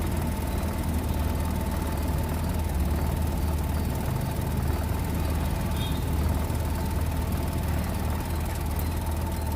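Maruti 800's three-cylinder carburetted petrol engine idling steadily.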